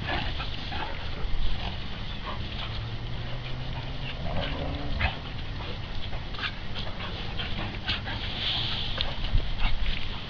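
Dogs play-fighting, giving short yips and whimpers among many brief scuffling sounds.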